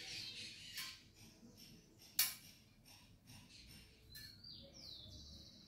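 Faint clicks and taps of a thermometer probe being handled at the metal mouth of a thermos, the sharpest about two seconds in. Near the end comes a short high-pitched chirp that falls in pitch, then a quick high trill.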